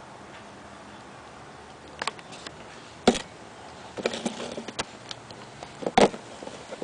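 Handling noise on a clear plastic tub: a few sharp taps and knocks as it is moved and touched by hand, the loudest about three seconds in and again near six seconds, with a short cluster of lighter clicks around four seconds.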